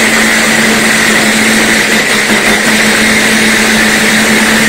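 A stick blender's motor running steadily on its mini chopper bowl at a constant pitch, blending onion, garlic and ginger into a near-liquid paste.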